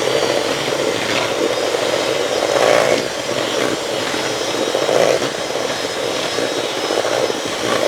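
Electric mixer running steadily on high speed, beating softened butter in a bowl, its motor whir swelling a little every couple of seconds.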